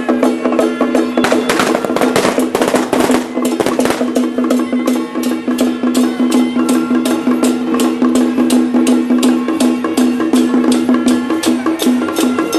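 Taiwanese temple procession music: a steady held tone over a fast, even beat of sharp percussion strikes, with a denser burst of clattering strikes about two to three seconds in.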